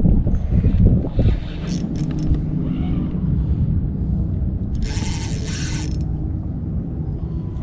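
Fishing reel working while a hooked fish is played, with a loud buzz of reel noise about a second long about five seconds in. A low rumble of wind on the microphone runs underneath.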